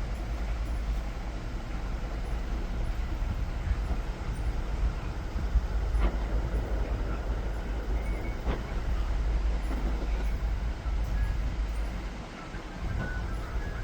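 Steady low rumble under a haze of noise, with faint ticks about six and eight and a half seconds in.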